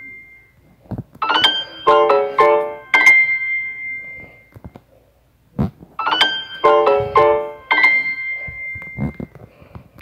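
Phone notification tone playing twice as the notification volume slider is adjusted: a quick run of bright chime-like notes ending on a held high note that fades away. A short tap click comes before each one.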